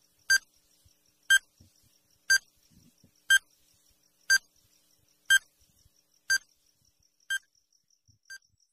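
Countdown timer sound effect: nine short electronic beeps, one a second, with a faint fast ticking underneath. The last three beeps fade away.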